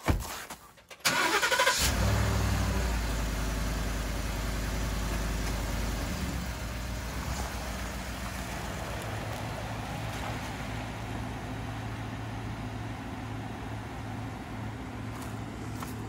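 Thump at the start, then a Ford F-150 pickup's engine cranks and catches a second or two in. It runs fast at first and settles to a steady idle about six seconds in.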